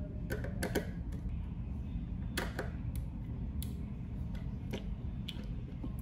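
Irregular light clicks and taps of a small screwdriver on the metal terminal screws of a limit switch as a wire is fastened, over a steady low background noise.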